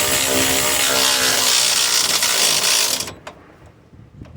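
A handheld power tool runs steadily, driving the bolts on top of a truck's strut, and cuts off about three seconds in.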